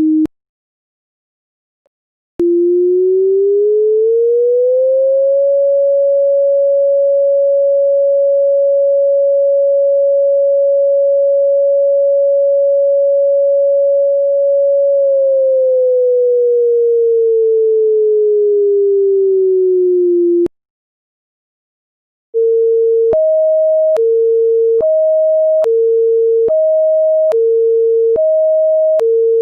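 Synthesized electronic siren tones, a pure sine-like tone. One tone rises over about three seconds, holds steady for about ten seconds, then slowly falls and cuts off. After a pause of about two seconds, a two-tone hi-lo siren pattern alternates between two pitches, switching about every 0.8 seconds.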